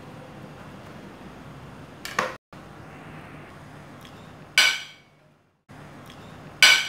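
Three sharp clinks of metal kitchenware on a stainless steel mixing bowl, a couple of seconds apart, each with a short ring, over a low steady hum. The sound cuts out briefly after the first two clinks.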